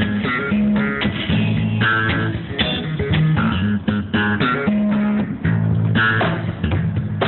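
Live band music with bass guitar and guitar to the fore, the bass holding long low notes under picked guitar notes.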